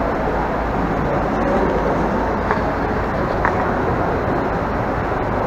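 Steady din of a busy airport check-in hall, a dense rumble with no clear voices, broken by two faint clicks about halfway through.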